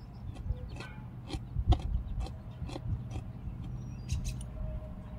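Crunchy Fritos chili cheese corn chips being chewed close to the microphone: irregular crisp crunches over a low steady hum.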